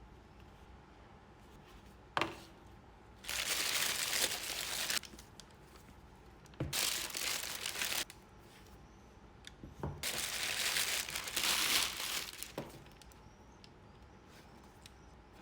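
Shoe-box packaging being handled and unwrapped: a knock about two seconds in, then three long stretches of crinkling and rustling.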